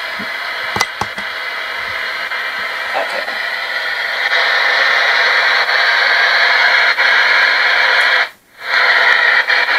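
Spirit box radio scanner running, giving out steady radio static that gets louder about four seconds in and cuts out briefly near the end, with a few faint handling clicks near the start.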